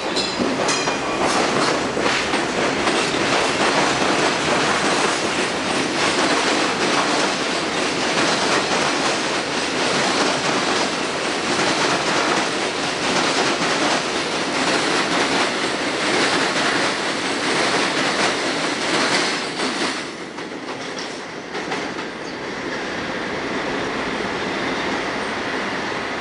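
An R62 New York City subway train pulls out of an elevated station, its wheels clattering over the rail joints of the steel structure. The sound falls away suddenly about 20 seconds in. After that, a fainter rumble grows as a second R62 train approaches along the el.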